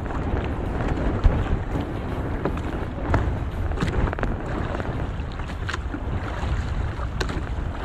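Wind buffeting the microphone over open sea, with scattered light clicks and rustles from a monofilament gill net being hauled in by hand.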